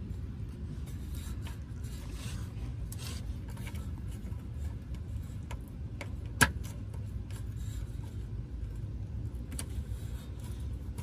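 Fingers rubbing and scraping at a plastic wiring-harness clip on a car's underside, with faint scattered ticks and one sharp click about six and a half seconds in, over a steady low rumble.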